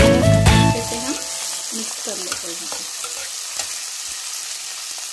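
Chopped onion, garlic and green chilli sizzling in hot oil in a metal pan, stirred with a metal spatula that scrapes against the pan now and then. Background music fades out about a second in.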